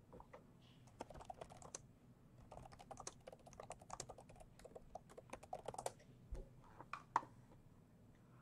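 Faint computer keyboard typing: a quick run of light key clicks, then one sharper click about seven seconds in.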